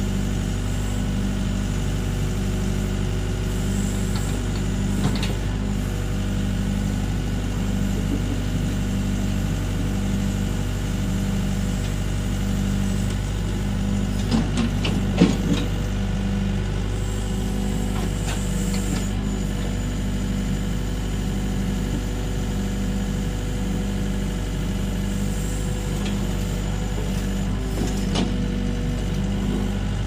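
LiuGong hydraulic excavator's diesel engine running steadily while the boom and bucket work a shallow cut, with a regular pulsing in its hum. A few short knocks about halfway through.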